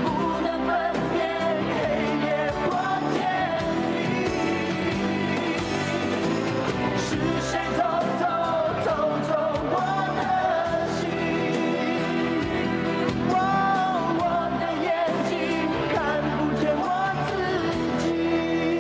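Mandarin pop ballad played back from a cassette recording: a full band with singing that carries a gliding melody line.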